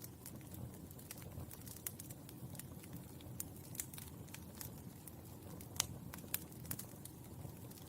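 Burning charcoal crackling: irregular sharp pops and ticks over a low steady rumble, with one louder pop about six seconds in.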